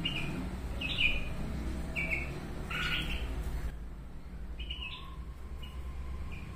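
Bulbuls giving short, bright chirps, about one a second: parent birds calling to their fledgling as it gets ready to fly off.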